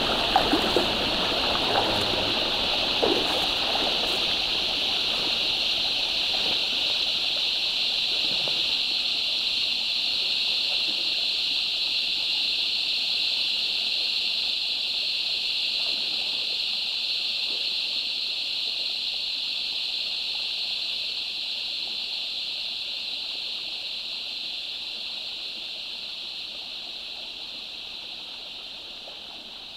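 Creek water running over rocks, a steady high hiss, with a few irregular splashes in the first several seconds. The sound fades down over the last several seconds.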